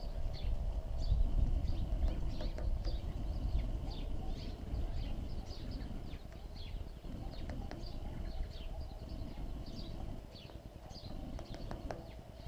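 Birds at a feeder: many short, high, falling chirps, several a second, over a steady low rumble. A few sharp taps come from a red-bellied woodpecker pecking at a wire suet cage.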